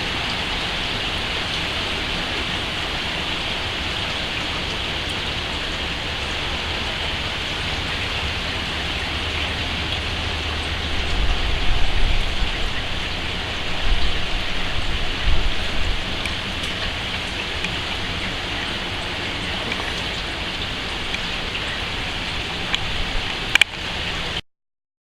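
Steady rain falling, a continuous even hiss, with a few low rumbling surges about halfway through. Near the end there is a click, then the sound cuts off abruptly.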